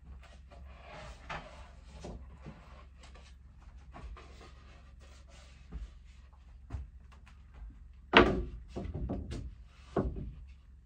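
A thin wooden panel being handled and lifted into place: light scuffs and small clicks, then a loud wooden knock about eight seconds in followed by a brief scraping rattle, and another knock near the end.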